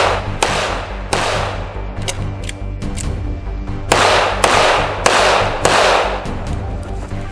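Gunfire: six loud shots with echoing tails. Two come in the first second and a half, and four follow about half a second apart starting about four seconds in, with fainter sharp cracks between them.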